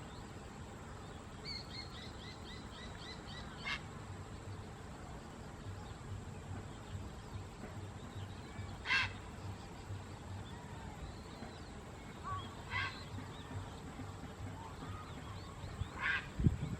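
Faint small-bird calls over steady background hiss: a quick run of chirps about a second and a half in, then single short high calls now and then. Right at the end a loud, low, harsh call begins, the croak of a grey heron.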